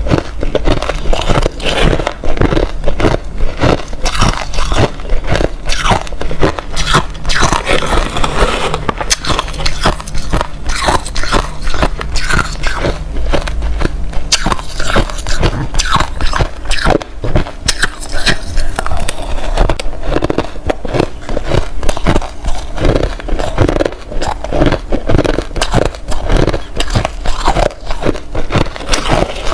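Close-miked crunching of crushed ice being bitten and chewed, a rapid, irregular run of sharp cracks several times a second.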